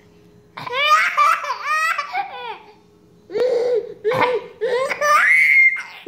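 A baby laughing in two bouts, one starting about half a second in and another around three seconds in. The laughs slide up and down in pitch, and the second bout ends in a rising squeal.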